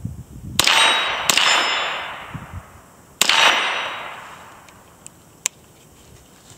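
Rifle shots fired from the standing position, the first followed less than a second later by the ringing clang of a steel target being hit, and a second shot about two and a half seconds after the first. A faint sharp click comes near the end.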